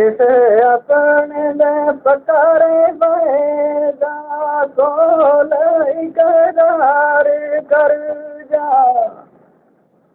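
A man singing a Gojri bait solo and unaccompanied, in long held, ornamented notes with short breaks for breath. The sung line ends about nine seconds in.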